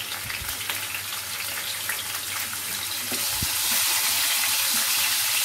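Chopped garlic and cumin seeds sizzling and crackling in hot oil in a non-stick kadai as they are stirred with a spatula. The sizzle grows louder over the first few seconds.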